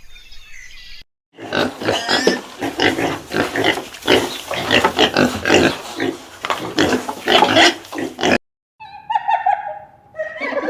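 Loud, rapid animal calls, densely packed, for about seven seconds. A short break follows, then a different, clearer pitched animal call near the end.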